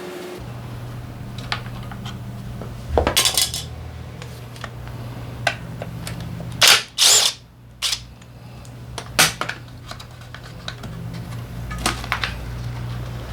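Metal engine parts and hand tools clinking and clattering on a workbench during a scooter engine teardown, with scattered sharp knocks and a louder burst of noise about seven seconds in. A steady low hum runs underneath.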